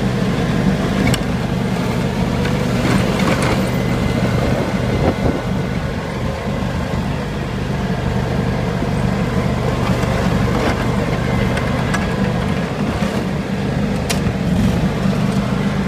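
John Deere X720 lawn tractor's V-twin engine running steadily under load while its 54-inch front blade pushes snow. A few short knocks come through, one sharper near the end.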